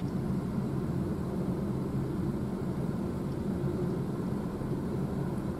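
CSX freight train's cars rolling past a grade crossing: a steady noise of wheels on rail, with a single sharp click at the very start.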